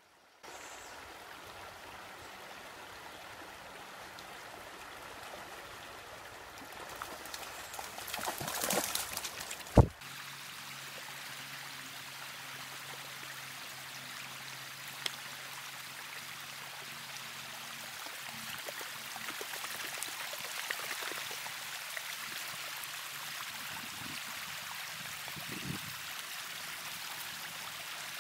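Shallow creek running over rocks, a steady trickling, babbling flow. It swells louder for a moment about eight seconds in, and a single sharp knock, the loudest sound, comes just before ten seconds in.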